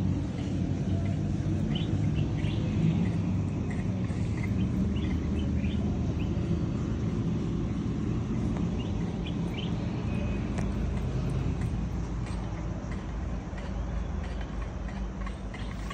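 Steady low rumble of outdoor background noise, with scattered short bird chirps throughout.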